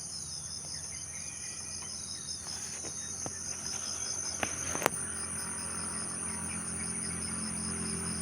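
Steady high-pitched chorus of insects trilling, one layer pulsing about five times a second. There is a single sharp click a little before five seconds in, and a low hum that grows toward the end.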